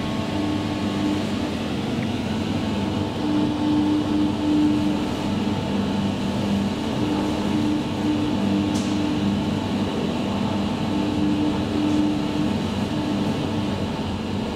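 A traction elevator car running steadily through its shaft: an even mechanical hum carrying a few level droning tones that do not rise or fall.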